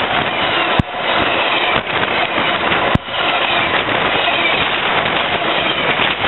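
Amtrak Northeast Regional train's stainless-steel Amfleet passenger cars passing close at speed: a loud, steady rush of wheel and air noise.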